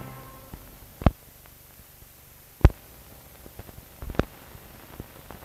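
Surface noise of a 16mm film soundtrack running on blank leader: low hiss with scattered ticks and three sharp pops about a second and a half apart, from dirt and damage on the film. The last of the music fades out at the very start.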